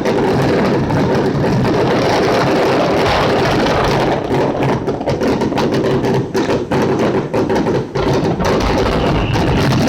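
A fireworks barrage: many shells bursting close together in a continuous run of booms and crackles, so dense that the sound hardly drops between bangs.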